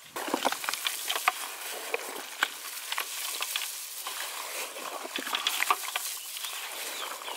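Gloved hands mixing raw mutton with marinade, onions, chilies and herbs in a large steel pot: wet, crackly mixing with many small clicks and slaps, starting abruptly just after the start.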